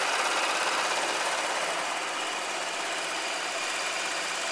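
IBM 083 punched-card sorter running, feeding a deck of cards through and dropping them into its pockets: a dense, steady, rapid mechanical clatter.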